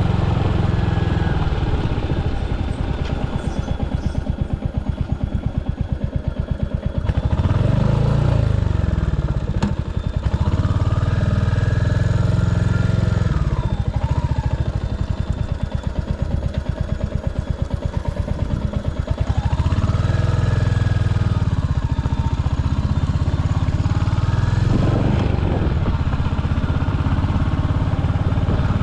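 Royal Enfield Hunter 350's single-cylinder engine under a riding motorcycle, the throttle opened and closed repeatedly. The revs climb, then fall back to a quieter, slower off-throttle beat, about three times over.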